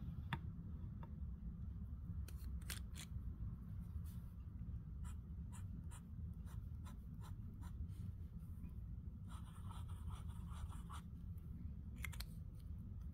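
Fountain pen nib scratching on paper in a series of short strokes, with a longer stretch of continuous writing about two-thirds of the way through, over a steady low hum.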